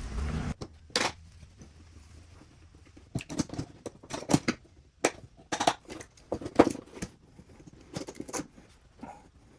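Irregular clicks, knocks and clatter of small hard objects being handled, with the densest run in the middle.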